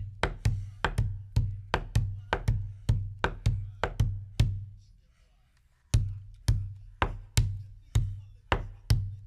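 Background music with a steady drum beat and deep bass, about three beats a second. It drops out briefly just past the middle and comes back in about a second and a half later.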